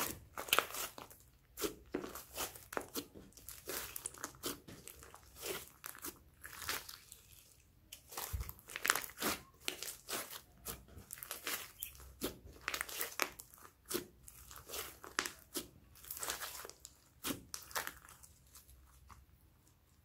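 Pink slime mixed with foam beads being squeezed and kneaded by hand: irregular sticky crackling and popping, several snaps a second, with a short lull about eight seconds in.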